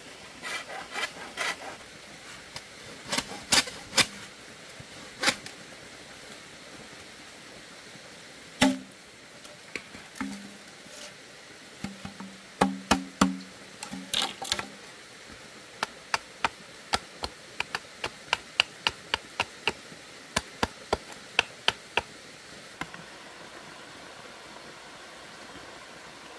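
Hand tools knocking and hammering on wood: irregular sharp strikes, several with a hollow ringing note, then a run of light, even taps about three a second, over a steady hiss.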